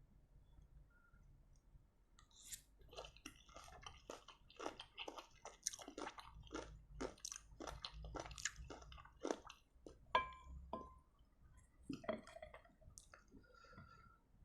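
Close-miked chewing of crunchy rujak jeruk nipis (lime and fruit salad in spicy sambal), a steady run of crisp chews at about two a second that stops about ten seconds in, followed by a few scattered mouth sounds.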